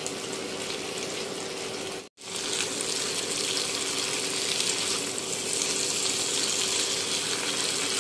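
Liver and potato singara filling sizzling and bubbling steadily in a frying pan as its gravy cooks down, stirred with a spatula. The sound breaks off briefly about two seconds in, then carries on slightly louder.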